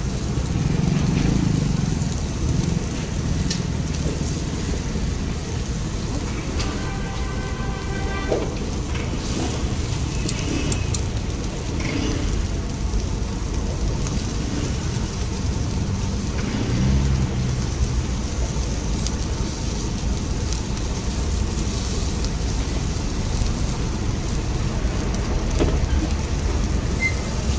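Chicken skewers sizzling over a direct-fire grill, over a steady low rumble.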